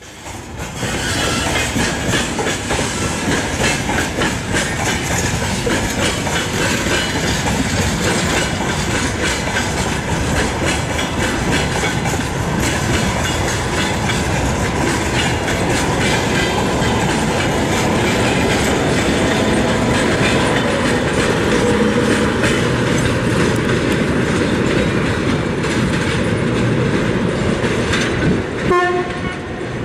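Freight gondola wagons rolling slowly past behind a TGM6D diesel-hydraulic shunting locomotive, with a steady clickety-clack of wheels over the rail joints. A short horn blast sounds about a second before the end.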